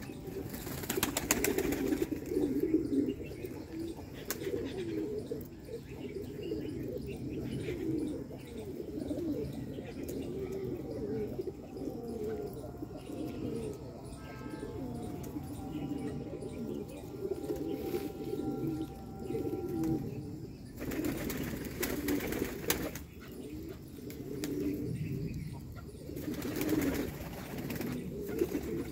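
A flock of fancy pigeons cooing continuously, many low coos overlapping. There are brief bursts of louder rustling noise near the start and twice near the end.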